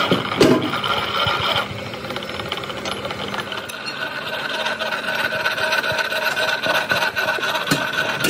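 A machine running steadily, with a hum of held tones and a fast, irregular rattle of clicks; a short low thump about half a second in.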